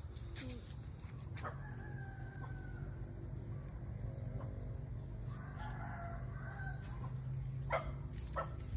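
A rooster crowing twice, each call held about a second, over a steady low rumble. A couple of sharp clicks come near the end.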